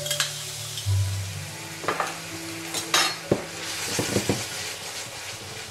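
Fish pieces sizzling in a frying pan while a metal utensil stirs them, scraping and clinking against the pan several times.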